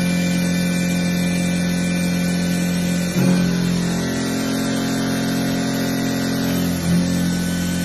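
CNC vertical milling machine's end mill cutting a metal block under flood coolant: a steady machine tone that shifts briefly about three seconds in and again near seven seconds.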